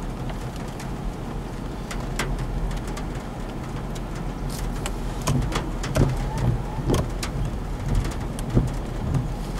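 Thunderstorm ambience near a tornado: a steady rushing noise of wind and rain with a low rumble, and scattered sharp taps that come more often from about halfway through.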